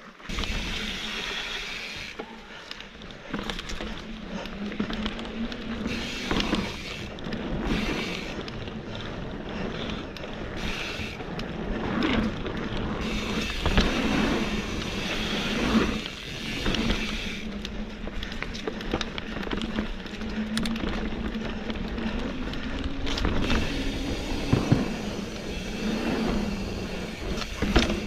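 Mountain bike being ridden along a wooden plank boardwalk: a steady hum from the knobby tyres rolling, with scattered knocks and rattles as the wheels and bike cross the planks. Wind rumbles on the microphone throughout.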